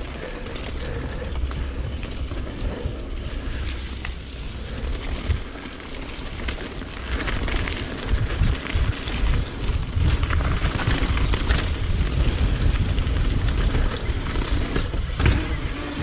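Mountain bike riding a rough downhill trail: a low rumble of wind on the microphone over tyre noise on dirt and rock, with the bike knocking and rattling over bumps, getting rougher about halfway through.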